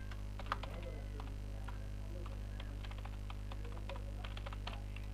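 Computer keyboard typing: short, irregular key clicks over a steady electrical mains hum.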